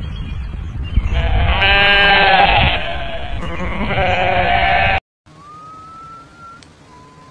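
Goat bleating: one long wavering bleat about a second in and a shorter, weaker one near the four-second mark, over a steady low rumble. After an abrupt stop, a thin whistle-like tone slides upward in steps.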